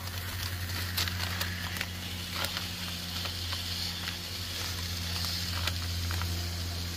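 Raw pork sausage sizzling on a hot flat-top griddle as it is pressed flat with a metal burger smasher over parchment paper, with light crackles from the paper. A steady low hum runs underneath.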